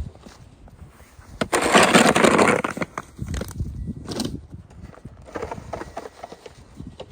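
A loud scrape lasting about a second, starting about a second and a half in, among scattered knocks and scuffs.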